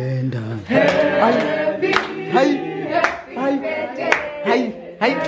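A group of voices singing together, with a sharp clap about once a second keeping the beat.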